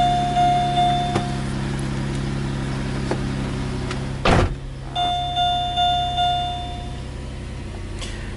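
Pontiac G6 GTP's 3.9-litre V6 idling steadily, with a dashboard warning chime dinging repeatedly at the start and again about five seconds in. A single thump sounds about four seconds in.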